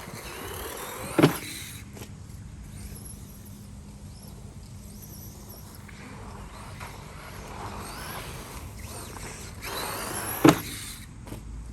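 Electric RC buggy with a Traxxas brushed motor being driven, its motor and drivetrain running, with two short loud bursts about a second in and near the end.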